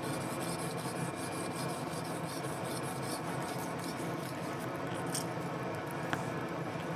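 A 12-inch ruler scraping across a glassblower's marver in quick, repeated strokes, over a steady background hum.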